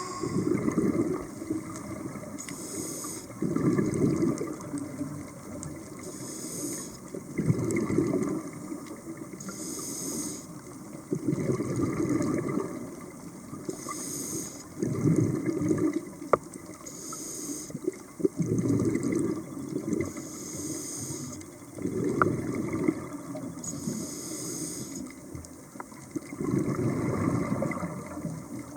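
A scuba diver breathing through a regulator underwater: a short hiss on each inhale, then a rumble of exhaled bubbles, repeating about every three and a half seconds for eight breaths.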